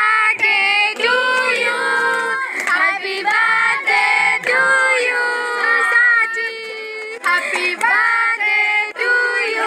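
High voices singing, holding long notes one after another.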